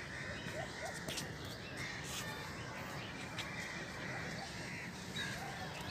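Outdoor ambience: a steady background hum, with scattered short bird chirps.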